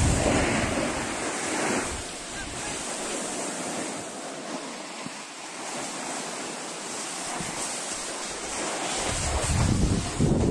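Wind buffeting a moving action-camera microphone, with skis hissing over snow as the wearer skis downhill. It is loudest with a low rumble in the first couple of seconds and again near the end, easing in between.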